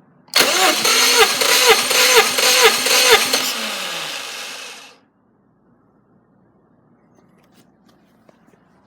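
Subaru EJ255 turbocharged flat-four engine being turned over by its starter motor for about four and a half seconds, pulsing rhythmically about twice a second, then winding down and stopping.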